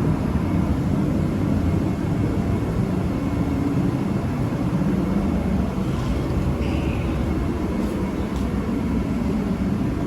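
Forced-air bullet heater running with a steady roar.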